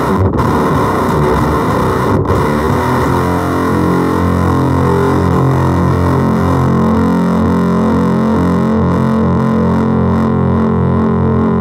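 Electric guitar through the FOWL Sounds Octagram Fuzz pedal, switched on, giving a heavily distorted, buzzy tone. A few choppy fuzzed notes, with two short breaks, give way about three seconds in to one long sustained fuzz note ringing on.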